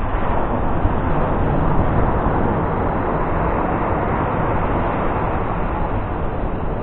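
Ocean surf breaking and washing up the beach: a steady, rushing roar without any separate strokes.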